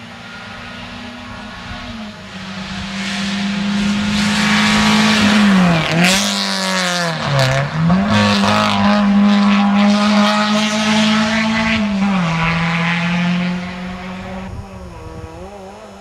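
Rally car engine running hard as it approaches and passes, growing louder over a few seconds. The engine note dips sharply twice, about six and seven and a half seconds in, and climbs back each time. It fades away near the end.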